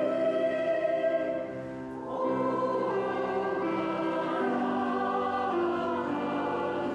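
Choir singing a Christmas hymn in long held chords, with a short break between phrases about a second and a half in.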